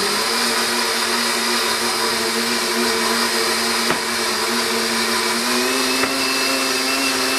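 K-Tec Champ HP countertop blender running steadily, blending a fruit-and-vegetable smoothie. The motor's whine steps slightly up in pitch about five and a half seconds in.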